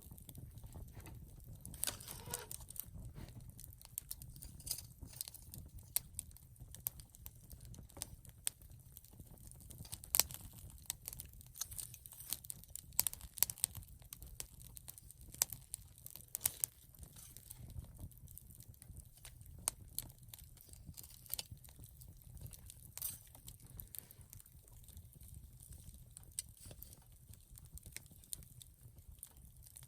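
Wood campfire crackling, with frequent irregular pops and snaps.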